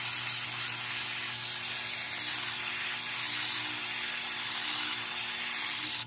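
Grade-60 sandpaper held against the spinning, rust-covered shaft of a 220 V window air-conditioner fan motor: a steady hiss as the rust is sanded off the shaft, over the running motor's steady hum.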